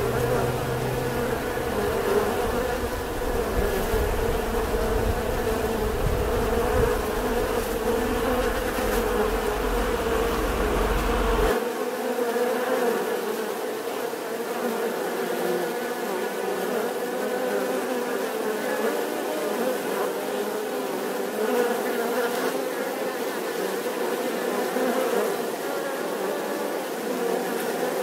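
Many honeybees buzzing together, a steady dense drone with no let-up. A low rumble beneath it cuts off abruptly about eleven seconds in.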